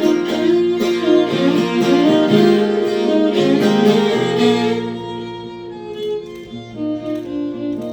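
Bluegrass band playing an instrumental break with no singing, fiddle and acoustic guitar to the fore. The playing thins out and gets softer about five seconds in.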